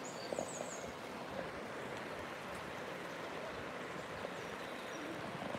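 River water running over shallow rapids, a steady rush, with a few short high bird chirps about half a second in.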